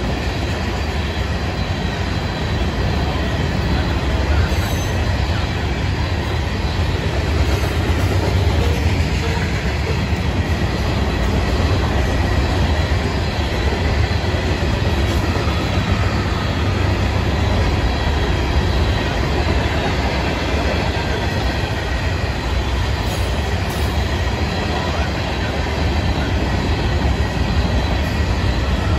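Loaded freight cars (tank cars and covered hoppers) rolling past: a steady, loud rumble of steel wheels on rail with a faint high squeal of the wheels above it.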